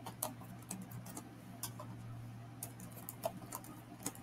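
Computer keyboard typing: irregular quick key clicks, with a faint steady hum underneath.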